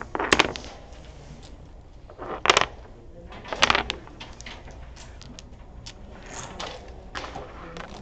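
Dominoes clacking as they are played down onto a wooden tabletop: three sharp clacks in the first four seconds, then lighter clicks of tiles being set down and slid.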